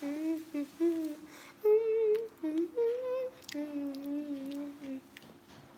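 A girl humming a tune, held notes that step up and down in pitch, stopping about five seconds in.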